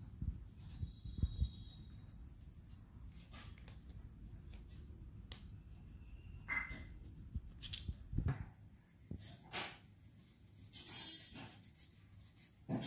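Coloured pencil shading on paper, a soft scratchy rubbing, with a few light knocks against the table.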